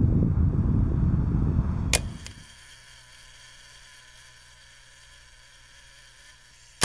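A deep rumbling noise that stops about two seconds in with a sharp hit, then a faint steady hiss and a second sharp hit near the end: the sound effects of an animated logo sting.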